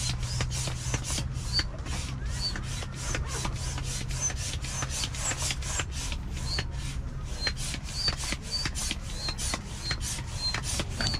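Repeated rubbing or scraping strokes, about three to four a second, steady in pace.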